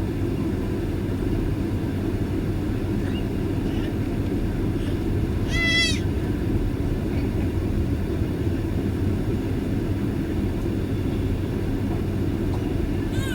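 Steady low rumble of a Boeing 767-323ER airliner taxiing, with one short, high call about six seconds in that rises and falls in pitch.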